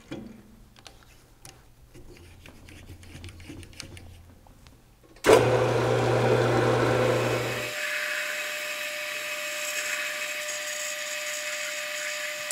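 Small metal lathe facing off the end of an 8 mm shaft: faint at first, then about five seconds in the machining noise comes in loudly over a low motor hum. It settles into a steady whine with a hiss of cutting that runs on to the end.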